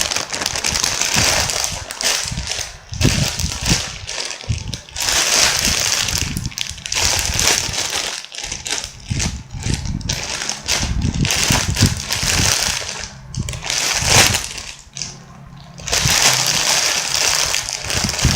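A jumbo foam unicorn squishy being squeezed and kneaded in the hands close to the microphone: long bursts of rustling, crackling friction noise, with a short lull about fifteen seconds in.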